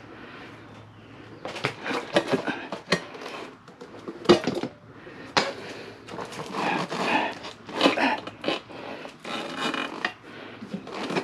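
Metal tire levers clinking and scraping against the wheel rim as a motorcycle tire's bead is levered onto the rim by hand, in irregular strokes with a sharp knock about four seconds in.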